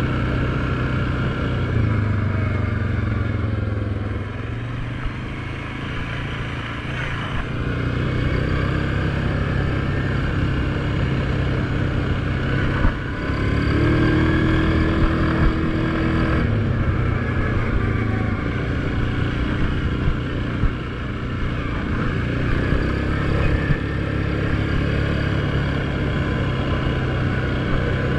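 ATV engine running under way on a dirt trail, its pitch rising and falling with the throttle and getting louder for a few seconds about halfway through.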